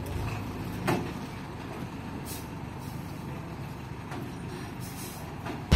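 Dump truck's diesel engine running steadily, with a sharp knock about a second in and a brief hiss of air a little after two seconds.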